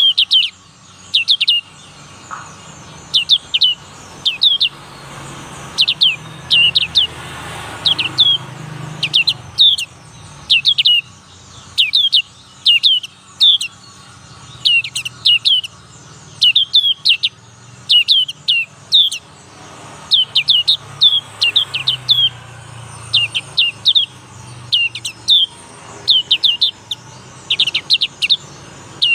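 Young black-capped white-eye singing: short, sharp, high chirps that sweep downward, given in quick clusters of two to four with brief pauses between.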